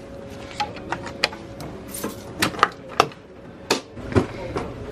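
Keurig K3000SE commercial coffee brewer being closed and started: a series of sharp plastic clicks and knocks from its brew-head lid and buttons, over a thin steady hum, as it begins brewing.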